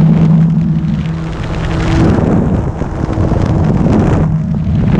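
The brushless electric motor and propeller of a Carbon-Z Cessna 150 radio-controlled model plane running in flight, a steady hum with wind noise on the microphone.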